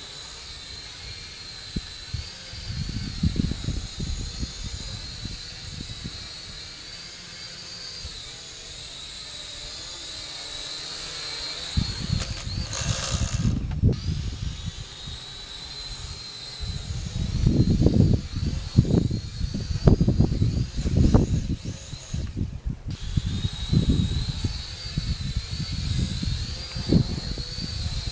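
Syma X5C quadcopter's four small motors and propellers whining high, the pitch wavering as the throttle is worked. The whine drops out briefly twice. Strong wind buffets the microphone in irregular gusts.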